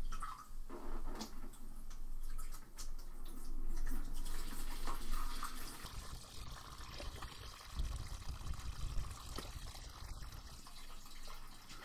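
Red wine trickling from a siphon tube into a plastic bucket as it is racked off its yeast sediment, a steady pouring, with a few light knocks near the start.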